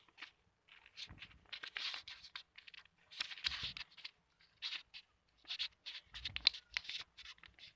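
A sheet of paper being folded and creased by hand: irregular rustling and scraping strokes, with a few soft thuds.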